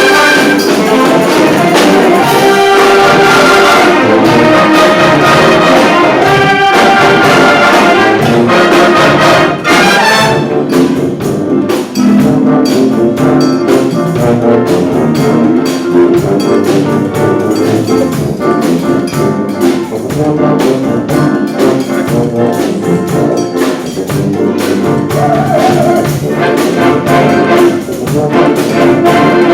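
A brass band playing a tune with horns in full ensemble. Sharp percussive hits join about ten seconds in.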